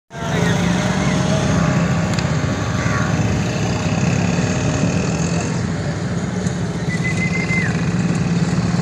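A steady, loud low mechanical drone, as of an engine running, with a few short high thin tones over it, one about seven seconds in.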